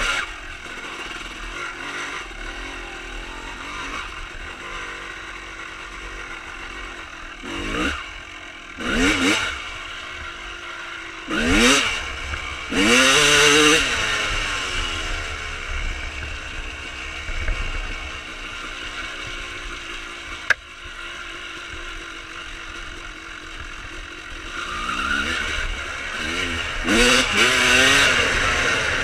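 1995 Honda CR250R's two-stroke single-cylinder engine with a Pro Circuit exhaust, running under way with several short revs in the middle and a longer rev near the end, its pitch rising with each throttle opening. A single sharp click comes about two-thirds of the way through.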